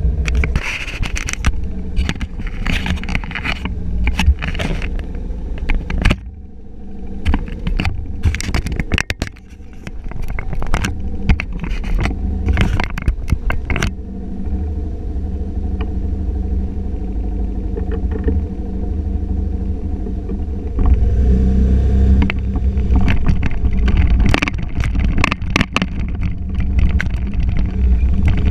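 Honda motor scooter's engine running steadily, with frequent knocks and scrapes from the camera mounted on it being handled. From about 21 seconds in the sound grows louder with a low rush as the scooter rides along.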